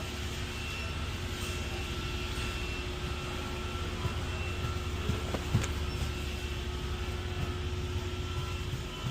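Steady store background hum with faint steady high tones, as from ventilation and refrigeration. A single light knock comes about five and a half seconds in.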